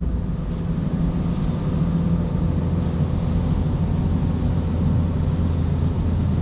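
A large engine running at a steady speed with a low, even drone and no change in pitch. It cuts off abruptly at the very end.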